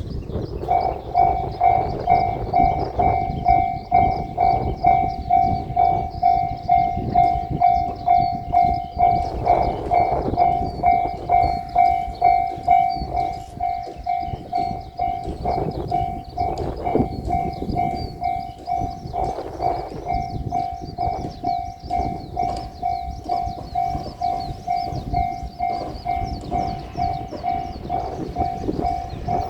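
Japanese railway level-crossing alarm ringing, an electronic ding repeating about twice a second, starting about a second in. A train runs past over the crossing at the same time.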